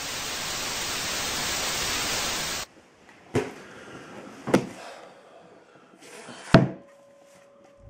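A burst of hiss like television static for a little under three seconds, cut off suddenly. Then three sharp thumps, about a second apart, the last one loudest.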